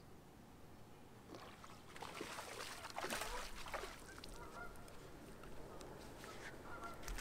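A small hooked bass splashing at the surface as it is reeled to the boat and swung out of the water, with geese honking faintly in the second half.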